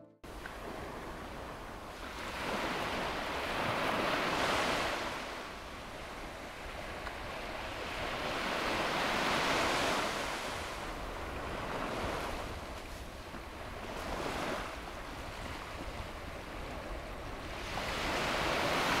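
Small waves washing onto a sandy beach, the surf swelling and falling back about every five seconds.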